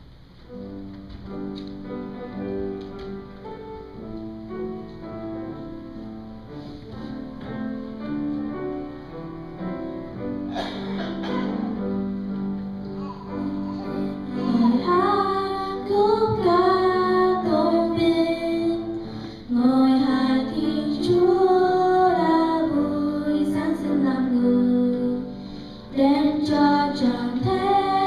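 A Vietnamese Christmas song: an instrumental introduction begins about a second in, and women's and children's voices join in singing about halfway through, louder than the introduction.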